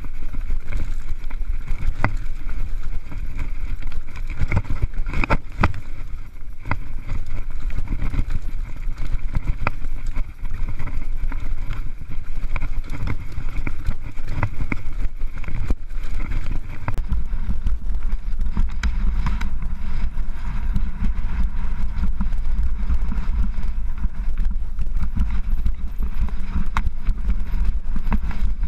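Mountain bike rattling and clattering over rocky singletrack, tyres and frame knocking on the rough rock, heard from a camera on the rider with wind rumbling on the microphone. The rumble grows heavier about halfway through.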